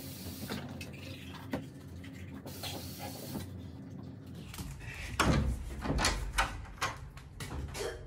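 Water running into a bathroom sink with small clicks and knocks at the basin, then, after about four and a half seconds, a run of loud thumps and knocks.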